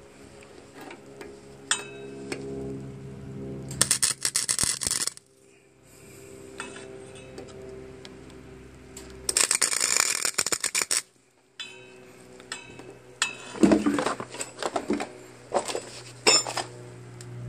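Wire-feed welder arc crackling and sputtering in bursts as steel rods on a lawn tractor's drag link are welded together. There is a longer burst about four seconds in, another about nine seconds in, and a run of short bursts from about thirteen seconds, with a steady hum between.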